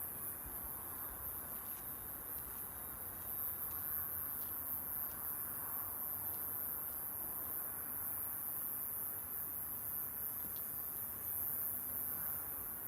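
Steady high-pitched chirring of crickets, with a few faint snaps from a wood campfire.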